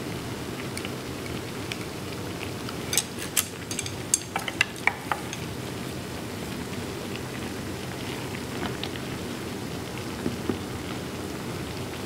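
Ramen broth boiling with a steady bubbling hiss in a stainless steel pot. A quick cluster of sharp utensil clinks comes about three to five seconds in as beans and kimchi are added.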